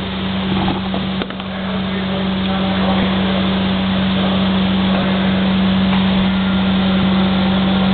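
Printing press running with a steady, loud mechanical hum: a strong low tone over an even drone, swelling slightly about a second in.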